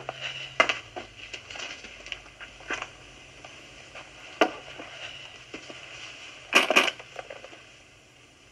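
A briefcase being handled and opened: scattered sharp clicks and rustles, then a louder quick double snap, like its latches, about two thirds of the way through.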